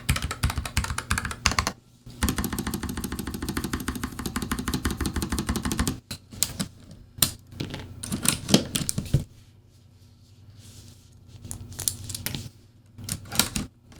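Typing on a NuPhy Air75 low-profile mechanical keyboard with Gateron low-profile red switches and PBT keycaps: fast, dense keystrokes for about six seconds, then slower, scattered single key presses with a quieter stretch in the second half.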